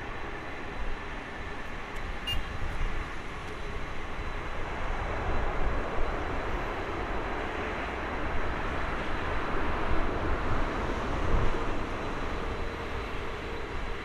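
Airbus A330neo's Rolls-Royce Trent 7000 jet engines running at high power as the airliner rolls along a wet runway, a steady rushing noise that grows louder and peaks about ten seconds in.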